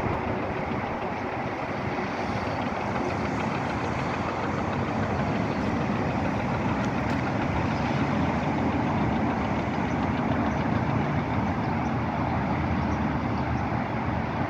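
Steady engine noise of heavy vehicles running, with no pauses or sudden sounds.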